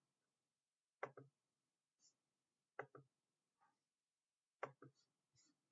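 A computer mouse clicking about six times, in single clicks and quick pairs, against near silence.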